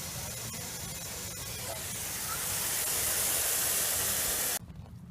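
Water spraying from a lawn sprinkler system that has been switched on to test a newly fitted sprinkler-pipe tee for leaks. It is a steady hiss that grows louder about two seconds in and cuts off suddenly near the end.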